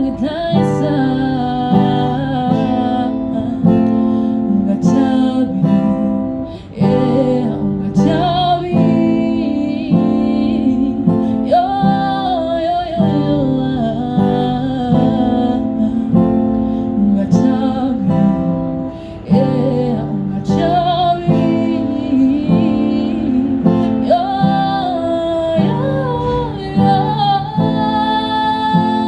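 Music: a song with guitar and a sung melody over a steady rhythm.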